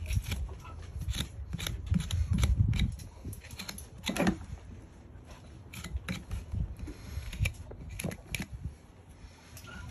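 Hoof knife paring the sole and frog of a horse's hoof: a series of short, crisp cutting strokes at irregular spacing. A low rumble swells about two seconds in.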